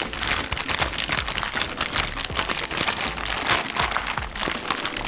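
Zip-top plastic bag crinkling and rustling as hands knead sliced pork and kimchi marinade through it, a rapid continuous crackle.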